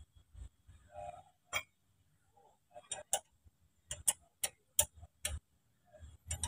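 A metal spanner clicking and tapping against the 14 mm caliper bolt of a Perodua Myvi front brake caliper as it is fitted and turned. These are sharp, irregular ticks, one at first, then several closer together, about two or three a second, in the second half.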